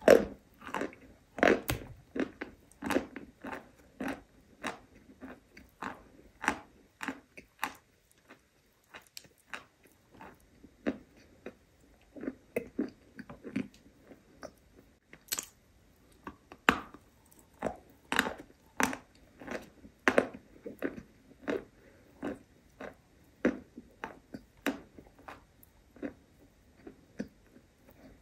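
Close-miked chewing of a berry mochi, a steady run of short bites and chews about two a second, with a quieter stretch partway through.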